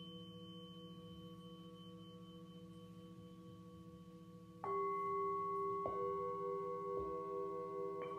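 Metal singing bowls struck with a mallet and left to ring. The ring of an earlier strike fades through the first half; about halfway in a new strike rings out much louder, followed by three more strikes about a second apart that add further pitches, the tones pulsing slightly as they sustain.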